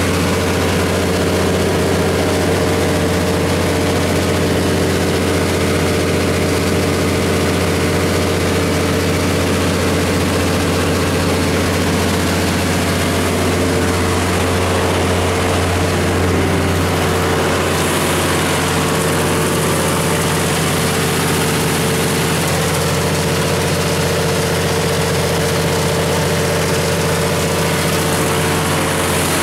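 Cummins LTA10-G1 turbocharged inline-six diesel of a 230 kW generator set running at a steady governed speed, a constant low drone, growing slightly brighter past the middle.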